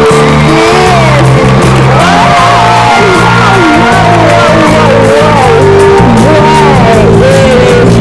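Loud music: a gliding, bending melody line over steady low bass notes that change every second or so.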